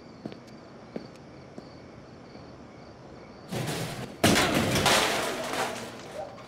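Galvanized metal trash can rattling as it rocks, then crashing over onto pavement about four seconds in, with a clatter of metal and the lid that dies away over the next two seconds. Before it, a quiet background with faint cricket chirps.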